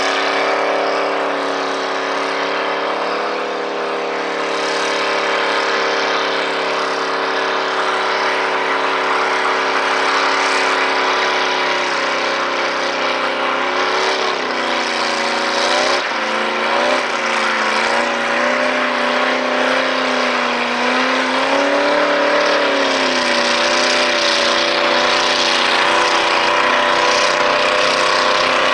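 Rat rod doing a burnout: the engine is held at high revs with the rear tyres spinning against the pavement, steady for about the first twelve seconds, then the revs rise and fall repeatedly as the throttle is worked.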